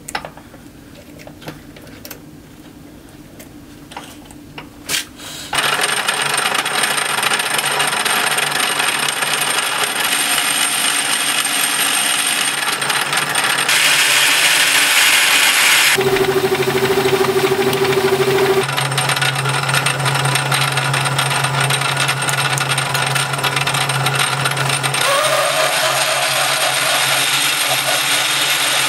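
A few clicks and knocks as a steel blank is tightened in a three-jaw lathe chuck. Then, from about five seconds in, a Logan metal lathe runs steadily with its change gears turning, its sound shifting several times. Near the end a drill bit is cutting into the spinning steel blank.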